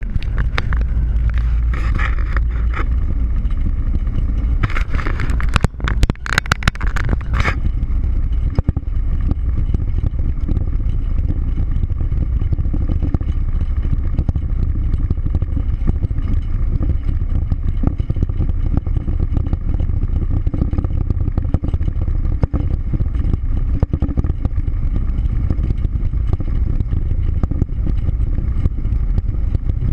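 Steady low engine and road rumble with wind noise inside a moving vehicle's cabin at highway speed. Louder bursts of noise come in about two seconds in and again between about five and seven and a half seconds in.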